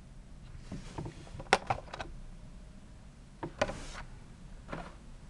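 Handling noise from blister-packed die-cast toy cars on their cardboard cards: a scattering of light, sharp plastic clicks with brief rustles, the clearest about a second and a half in and around three and a half seconds.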